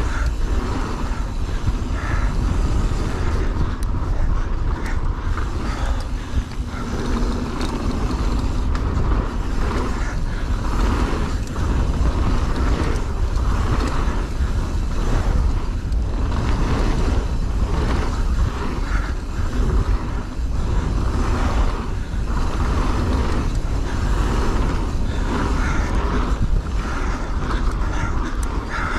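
A mountain bike ridden fast down a trail of roots and rocks: a steady heavy rumble of wind on the camera's microphone, with the bike's chain and frame rattling and knocking over the rough ground.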